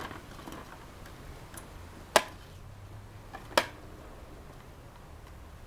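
Two sharp clicks about a second and a half apart, with a few faint ticks around them, as the cap on top of a SunRocket solar kettle is handled.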